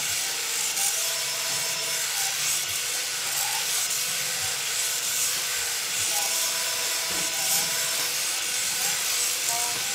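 Cordless drill on its lowest speed spinning a spring-loaded fine-stone cylinder hone in the oiled cylinder of a Kohler Courage 18 hp engine: a steady rubbing of the stones on the bore, with a faint drill-motor whine that comes and goes. The hone is cutting fresh cross-hatch into a cylinder wall that had rusted and gummed up.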